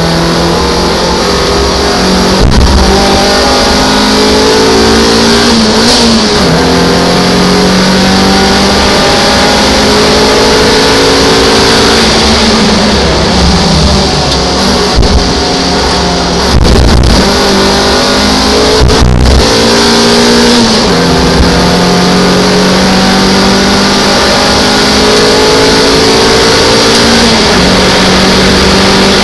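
MGF race car's engine heard from inside the cabin at racing speed, its pitch climbing under acceleration and dropping back on lifts and gear changes several times, over steady wind and road noise. A few sharp knocks come about halfway through.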